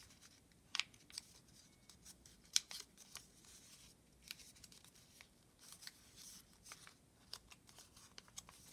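Sheet of paper being folded and creased by hand: faint, scattered crinkles and soft crisp ticks as the sides are pressed in.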